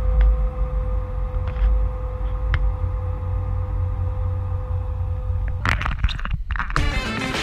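Boat engine droning with a deep rumble and a steady hum, with a few faint clicks. About six seconds in it breaks off in a burst of noise, and music starts just before the end.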